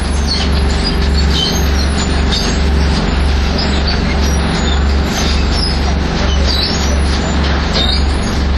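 Heavy bulk-handling machinery of a sawdust silo reclaim system running: a loud low hum pulsing in a regular rhythm, under a dense wash of rattling and scraping noise.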